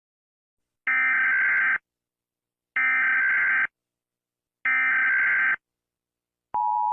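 Emergency Alert System SAME header data bursts: three identical harsh electronic screeches, each just under a second long and about a second apart. Near the end, the steady two-tone EAS attention signal begins, marking the start of an emergency alert.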